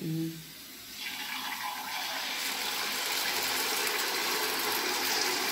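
Sel roti rice batter being squeezed from a cloth into hot oil and deep-frying, a steady sizzle that starts about a second in and holds even.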